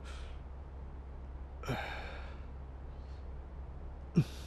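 A man's breathy sighs as he wakes and sits up: a short one at the start and a longer one about two seconds in, over a low steady hum. A short thud comes near the end.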